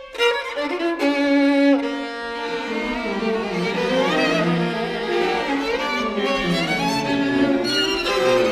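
Solo violin with string orchestra playing contemporary classical music. The strings come in together with a sudden attack at the start, then hold layered bowed notes with some downward slides under the violin. Higher parts enter again near the end.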